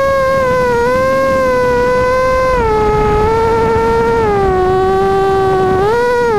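Racing quadcopter's electric motors and propellers whining in flight, a steady high-pitched buzz whose pitch steps down a few times as the throttle eases, with a short rise near the end.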